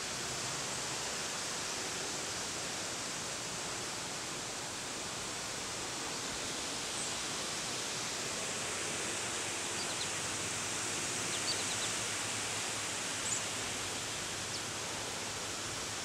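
Steady rushing noise of wind through tall leafy plants, with a few faint high chirps in the second half.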